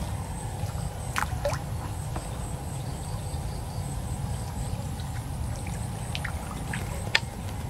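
Small water sounds, trickling and light splashing, over a steady low rumble. Short scattered ticks come throughout, with a sharp click about seven seconds in, and there is a faint high steady tone.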